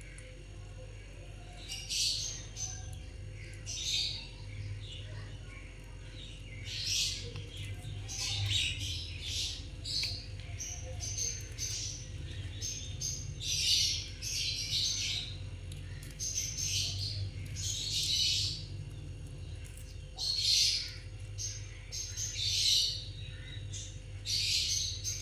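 Indian ringneck parrot giving short, high chirps and squawks over and over, about one every second or two, over a steady low hum.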